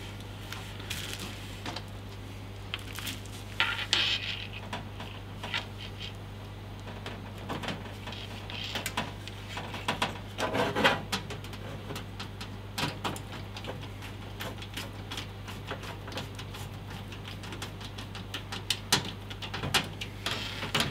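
Irregular small clicks, taps and clatters of a motherboard and its screws being handled against a steel PC case, with a few longer scraping rubs.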